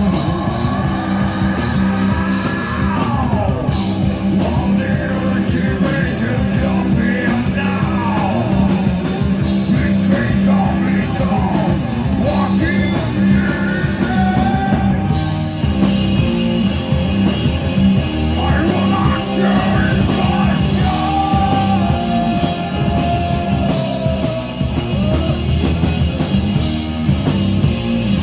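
Live rock band playing loud, with guitar and a singer's vocals over a dense, continuous low end.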